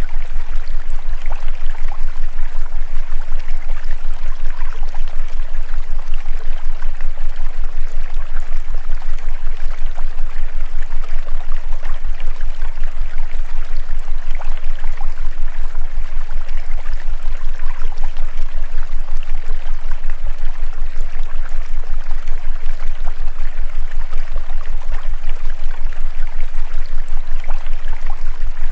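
Recorded stream water running steadily, with a low hum beneath it that pulses rapidly; the water serves as the masking track of a subliminal affirmation recording.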